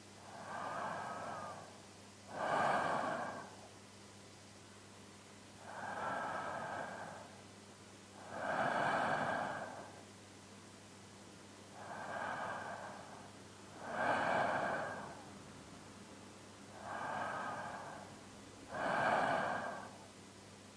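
A man's slow sleeping breaths, close to a binaural microphone: four breaths, each a softer sound followed a second or so later by a louder one, coming about every five to six seconds.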